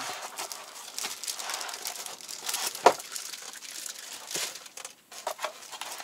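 Plastic packaging bag crinkling as the robot vacuum's docking station is handled and lifted out of its box, with a sharp knock about three seconds in.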